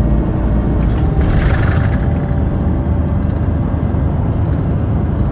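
City bus running, heard from inside the cabin: a steady low engine rumble with road noise, and a brief hiss about a second in.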